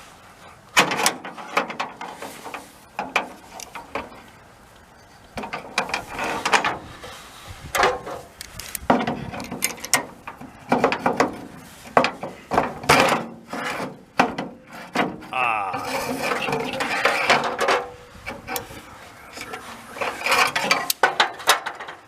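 Metal clicking, knocking and scraping as a VW split-window bus's rear cargo door latch rods and handle mechanism are worked into the door by hand, in irregular bursts, with a longer scrape about sixteen seconds in.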